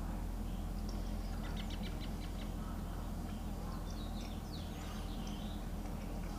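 Faint high bird chirps and peeps, a quick run of short notes about one and a half seconds in and a few rising and falling calls around four to five seconds in, over a steady low hum.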